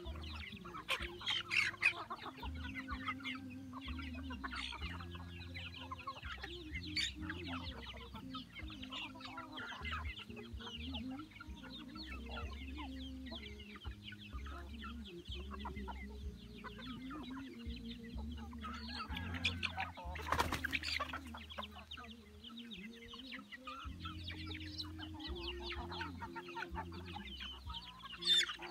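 A flock of native village chickens clucking as they feed together on scattered grain, many short calls overlapping. A louder noise lasting about a second comes about twenty seconds in.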